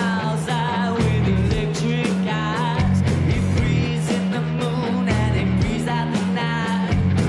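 Live recording of a rock band playing, with drums at a steady beat under the instruments.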